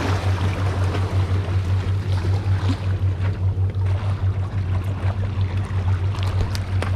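Sea water washing and lapping against jetty rocks over a steady, slightly pulsing low hum, with a few faint clicks near the end.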